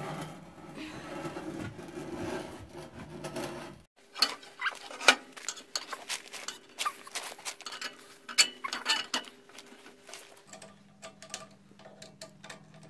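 Clinks, knocks and rattles of metal parts being handled as a pellet burner is slotted back into a Woodpecker pellet boiler and its feed hose is fitted. A low steady hum starts near the end.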